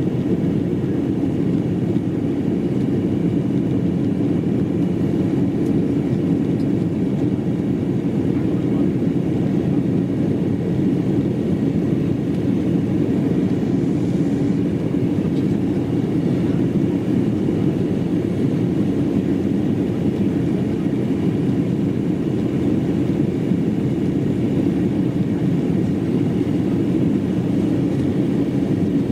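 Steady drone of an Embraer ERJ-195 airliner's twin turbofans and air flow heard from inside the passenger cabin, an even low rumble with a faint hum over it and no change in pitch or level.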